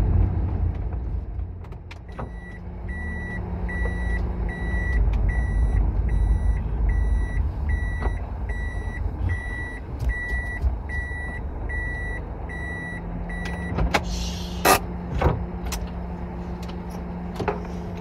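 Kei van's reverse warning beeper sounding a steady series of short high beeps, about one every three-quarters of a second, over the low rumble of the van running while it backs up. The beeping stops, and a few sharp clicks and knocks follow.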